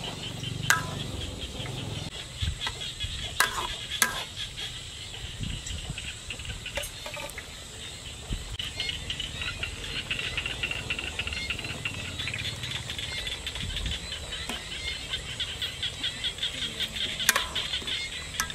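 Steady, rapidly pulsing high chirping of insects and birds, with a few sharp clinks of a metal ladle against an aluminium cooking pot, twice close together a few seconds in and once near the end.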